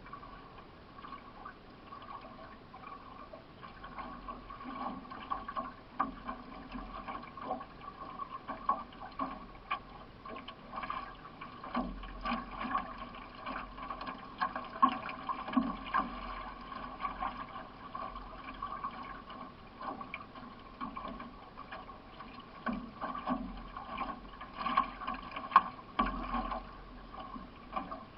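Solo racing canoe under paddle: water splashing and trickling with each stroke, in a run of irregular short splashes.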